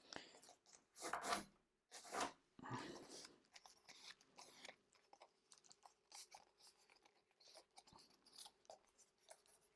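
Stiff paper strip, scored every millimetre, softly crinkling and rustling as it is handled and bent to make it flexible: a few rustles in the first three seconds, then only faint scattered ticks.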